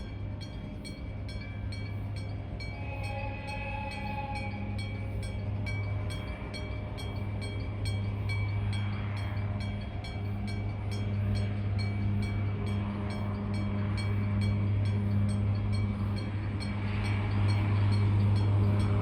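Freight-train diesel locomotive running with a steady low drone that grows louder as it approaches. A level-crossing alarm rings in an even, repeating rhythm.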